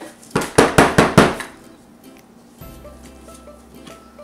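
A wooden loaf soap mold full of fresh soap batter is banged down on a tabletop about five times in quick succession, giving sharp knocks, to settle and level the batter in the mold.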